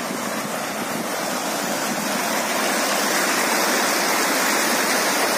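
Small rocky stream cascading over stones, a steady rush of water that grows a little louder.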